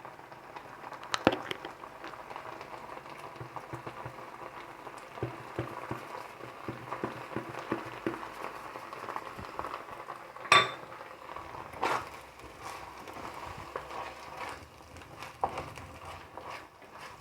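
Tomato and spice mixture sizzling and bubbling in a pan as a utensil stirs it, with frequent small clicks and scrapes against the pan and one louder clink about ten seconds in.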